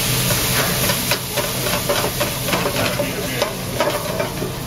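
Hot sauté pan of butter and garlic sizzling hard with many small crackles as liquid is poured into it from a bottle, over a steady low hum.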